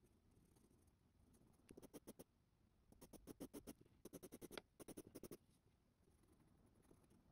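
Faint scratching of an 8B graphite pencil on drawing paper in quick back-and-forth hatching strokes, building up lines for shading. The strokes come in four short runs, several a second, starting about two seconds in.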